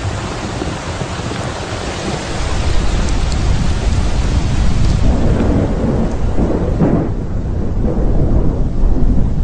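A thunderstorm: rain pouring with thunder rumbling. The low thunder rumble builds about two seconds in, and the rain hiss thins out near the end.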